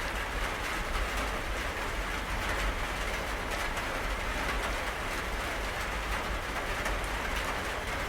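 Steady rainfall, a constant hiss with many small drop ticks, over a low steady rumble.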